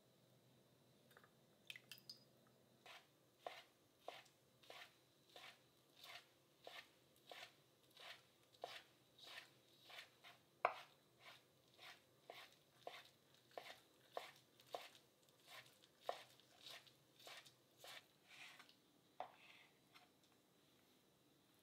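Kitchen knife slicing soaked shiitake mushrooms on a cutting board: a steady run of light, sharp taps of the blade on the board, about two a second, starting about three seconds in and stopping a couple of seconds before the end.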